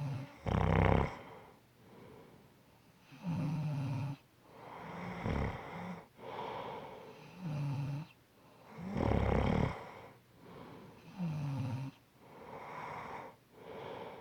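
Snoring in sleep: a steady rhythm of loud snores about every two seconds, each followed by a softer breath.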